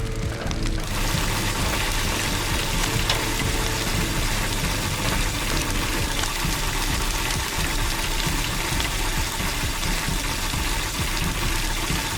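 A steady rushing, hissing noise with a low rumble underneath, starting about a second in and holding at an even level.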